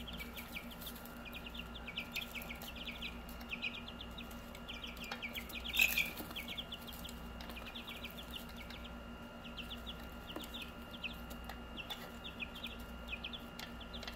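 Two-week-old chicks peeping: quick runs of short, falling cheeps, one louder about six seconds in. A window air-conditioning unit hums steadily underneath.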